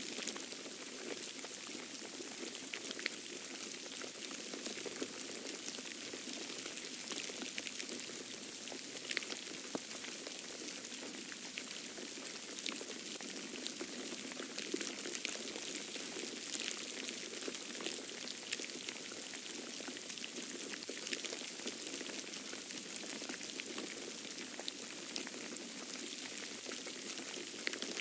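Falling wet snow: a steady hiss full of fine ticks of flakes landing, much like light rain.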